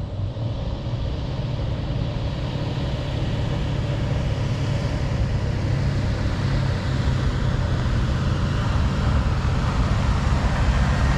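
Chevrolet pickup truck loaded with a cab-over camper driving slowly toward the listener, its engine running steadily and growing gradually louder as it approaches.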